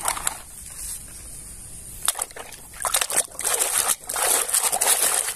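A few light knocks of plastic toys handled in a basket, then from about two seconds in, water sloshing and splashing irregularly as a hand scrubs a toy car in a basin of water.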